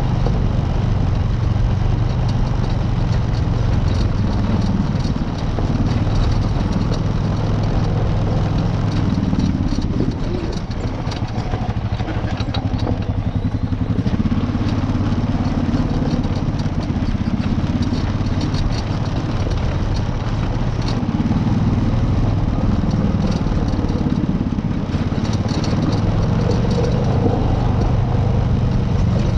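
Off-road vehicle engine running at low speed over rocky trail, with frequent clattering and knocks from the rough ground. The engine eases off briefly about ten seconds in.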